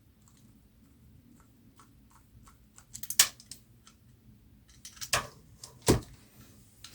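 Small metal parts and hand tools clicking and clinking while an airgun is worked on. Light, scattered clicks grow into a few sharper knocks about three, five and six seconds in.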